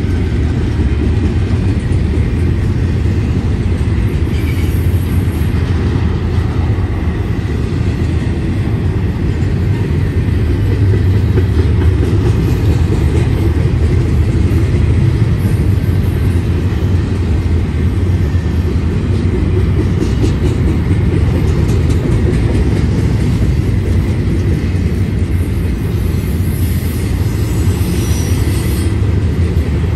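Double-stack intermodal train's loaded well cars rolling past: a steady, unbroken rumble of steel wheels on rail.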